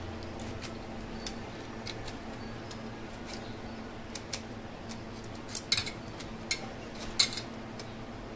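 Small clicks and scrapes of a knife and hand peeler working fruit and beetroot over a steel plate. The clicks are scattered and light, with a handful of sharper ones in the second half, over a steady low hum.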